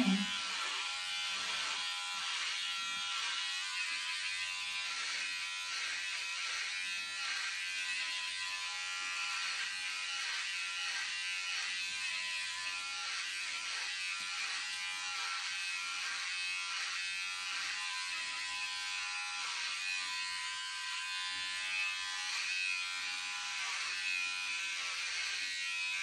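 Battery-powered electric hair clippers buzzing steadily as they cut through thick hair, the motor seeming to slow a little each time the blades meet the hair, which the user wonders is a sign it needs charging.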